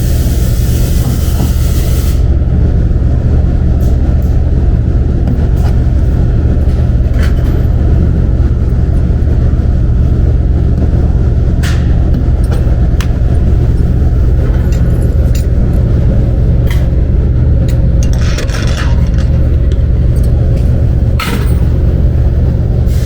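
A steady, loud low machine drone, like a motor or pump running, with scattered metallic clicks and knocks, a brief scraping about eighteen seconds in and a sharp knock near the end.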